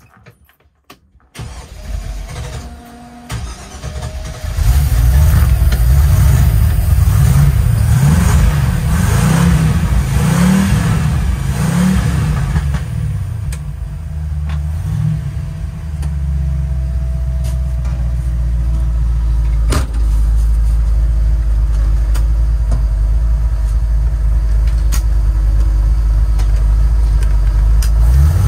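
Chevy 350 V8 started with the key: a few clicks, then uneven cranking until it catches about four seconds in. It is revved up and down several times and settles into a steady low idle after about thirteen seconds, with a brief rev near the end.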